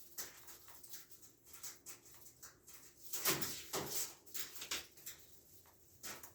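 Faint handling noise: scattered knocks and rustles as objects, likely a strand of Christmas lights, are moved about, the loudest little over three seconds in and another near the end.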